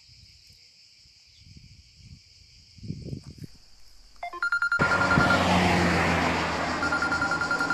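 Mobile phone beeps: a quick run of short keypad tones about four seconds in, then a steady electronic beep tone heard twice. Loud broad background noise sets in with them and runs under the beeps.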